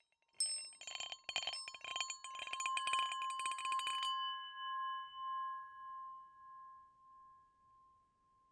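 A small metal bell dings once. It is then rung rapidly for about three seconds and left ringing out, its tone slowly wavering as it fades.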